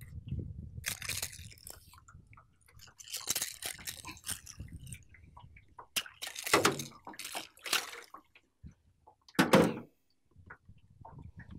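Water splashing in about five short bursts, the loudest near the middle and about three-quarters of the way through: a hooked peacock bass thrashing at the surface as it is brought in.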